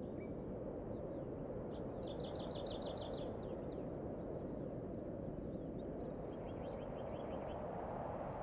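Outdoor ambience: a steady low rush with a small bird singing two short trills of quickly repeated high notes, one about two seconds in and one near the end, plus a few scattered chirps.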